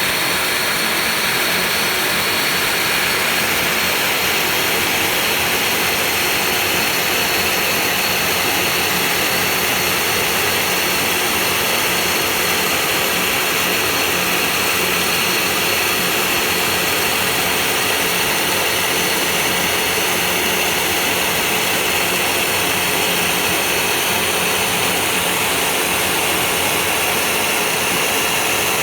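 CNC 3018 Plus desktop router running with its vacuum dust extraction on: a steady rushing noise with a thin high whine over it, unchanging throughout.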